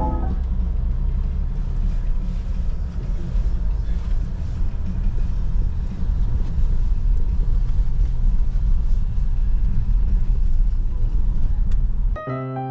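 A steady low rumble with no clear rhythm or pitch. It breaks off about twelve seconds in as piano music starts.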